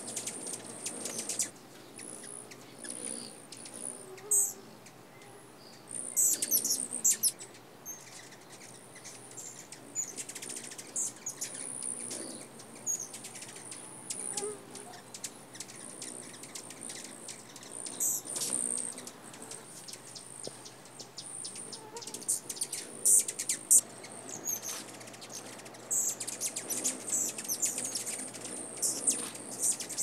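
Hummingbirds giving high, thin chip notes, scattered singly and in quick runs: a juvenile male black-chinned hummingbird, then a rufous hummingbird.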